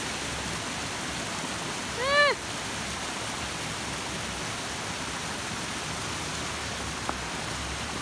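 Steady rush of a small waterfall and stream. About two seconds in there is one short, high call that rises and falls, and near the end a faint click.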